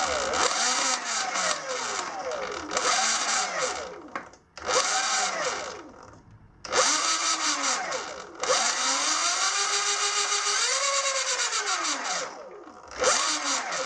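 Sur Ron Light Bee electric dirt bike motor spinning the drivetrain in about five throttle blips. Each blip brings a whine that rises and falls, with a hissing whir from the new 420 chain, and one longer pull is held steady near the middle. The owner calls the noises strange and judges the freshly adjusted chain too tight.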